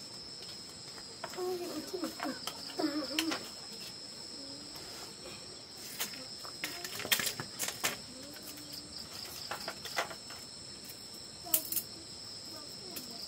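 Steady high-pitched insect chorus, typical of crickets, running throughout. Brief bits of voice come in a couple of times, and several sharp clicks and knocks sound, the loudest about seven seconds in.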